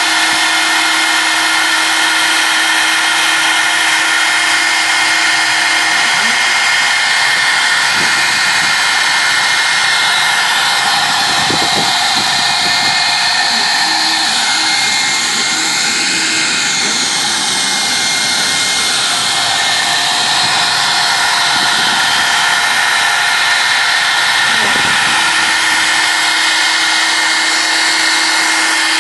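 CNC router spindle running at high speed while its bit mills isolation traces into a copper-clad PCB board: a steady high-pitched whine. A lower steady hum drops out a few seconds in and comes back near the end.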